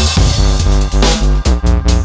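Electronic background music with a heavy bass line, sustained chords and a fast, steady drum beat.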